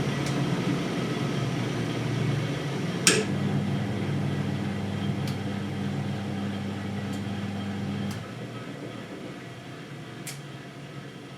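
Siemens Siwamat 960 washing machine running with a steady low motor hum and a few light clicks, a sharper click about three seconds in. About eight seconds in the hum stops and the sound drops to a fainter, quieter noise.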